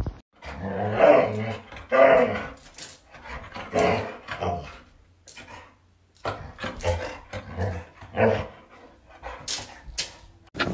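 A dog barking and vocalizing in a run of short bursts, with a brief lull around the middle.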